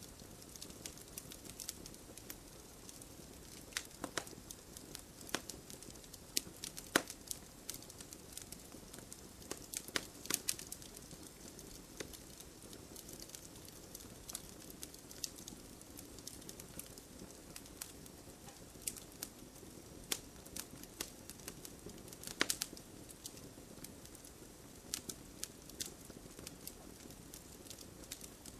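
Campfire burning, wood crackling with irregular sharp pops over a low steady hiss, a few louder snaps standing out.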